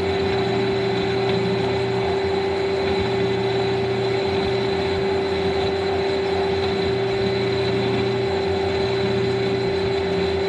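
Metal lathe running steadily with its chuck spinning a bushing blank: a steady machine hum with a fainter high whine over it.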